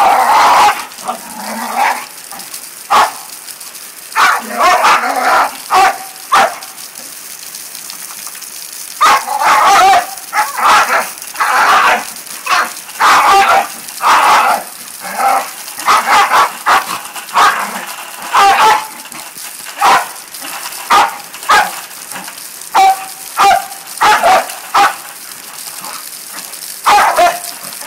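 Bull terrier barking and yapping excitedly in quick bouts of short barks as it leaps and snaps at the rain. A steady hiss of falling rain runs beneath.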